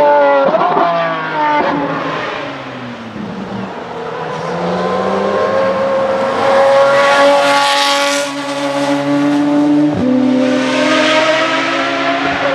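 Pagani Zonda Revolución's 6.0-litre Mercedes-AMG V12 running hard on track. The pitch falls away at first, then climbs steadily as the car accelerates past, loudest about eight seconds in. The note breaks sharply near ten seconds and then holds high and even.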